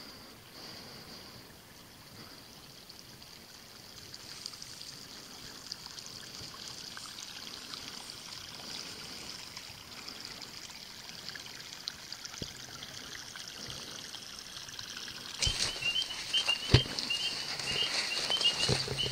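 Quiet night ambience in wet, marshy woods: a faint steady high hiss with water trickling. About fifteen seconds in it gets louder, with rustling and knocks of people pushing through brush and a quick run of repeated high chirps.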